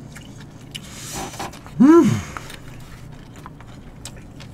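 A person eating gives a short 'mmm' hum about two seconds in, its pitch rising then falling, amid faint clicks of chewing and chopsticks.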